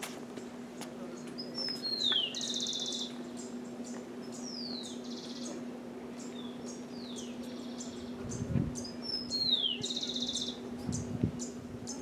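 A bird singing the same short phrase three times, a few seconds apart: a quick downward-slurred whistle followed by a harsh, buzzy trill. A steady low hum runs underneath, with a couple of low bumps in the second half.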